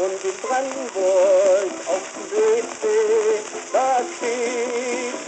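A 78 rpm shellac record playing a dance-orchestra march: short phrases of held, wavering melody notes over the disc's constant surface hiss and crackle.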